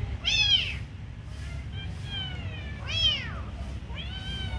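Young kitten meowing: four meows about a second apart, each rising then falling in pitch, the first and third the loudest.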